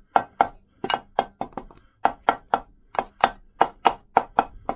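Quick run of light taps, three or four a second, often in pairs, from a wooden handle on the Lambretta's aluminium magneto flange, knocking it down to seat level on the crankcase.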